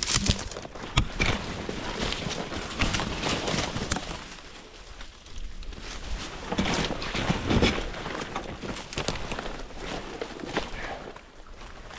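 Footsteps pushing through woodland brush: irregular crunching and snapping of twigs and undergrowth, with a heavier cluster of steps about seven seconds in.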